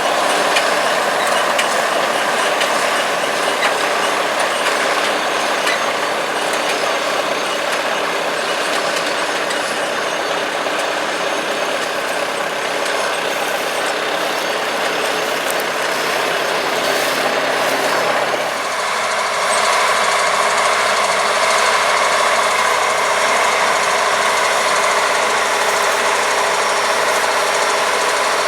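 Diesel-powered harvest machinery running steadily under load in the field. About two-thirds of the way through, the sound changes abruptly to a different machine mix.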